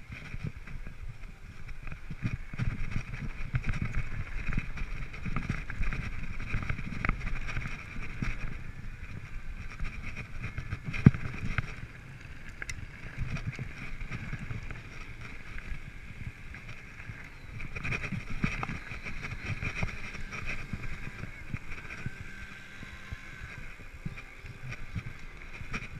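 Mountain bike riding over grass and dirt, heard from a camera worn by the rider: wind rushing over the microphone and a low tyre rumble rising and falling with the terrain, over a steady higher hiss of the ride. A single sharp click about eleven seconds in.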